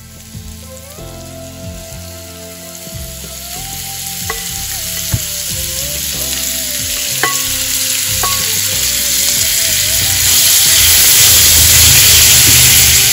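Marinated duck pieces sizzling and frying in hot oil with onions in a wok as they are stirred, the sizzle growing louder, with a few sharp clicks near the middle.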